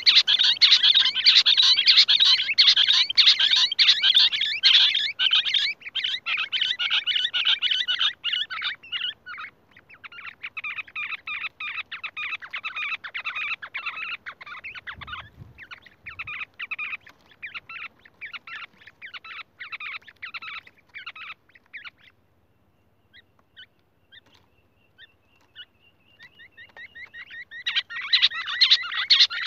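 Rapid, chattering bird calls, the 'Lahori' call (the uploader tags it as a Lahori quail), made of dense trains of quick high notes. The calls are loud at first, thin out to a quieter rapid series and nearly stop about two-thirds of the way in, then come back loud near the end.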